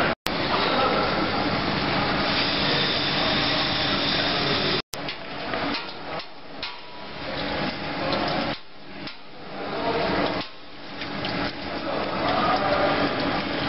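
Steady machine and shop noise with metallic clinks and knocks. It breaks off twice. In the middle stretch it turns uneven, with separate knocks between quieter gaps.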